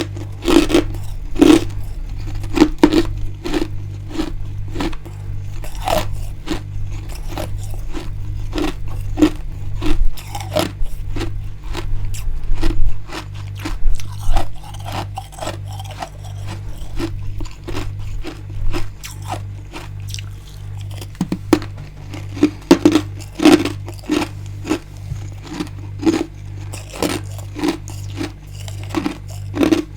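Freezer frost being bitten and chewed close to the microphone: crisp, irregular crunches, often several a second, with a steady pulsing low hum underneath.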